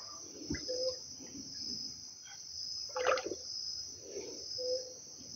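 A steady high-pitched chorus of insects, with a soft thump about half a second in and faint water and handling sounds from the wooden canoe being worked in the shallows.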